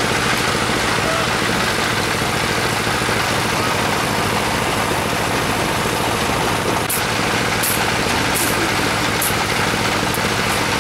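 Engine running steadily at an even pitch, with a few short, sharp high clicks from about seven seconds in.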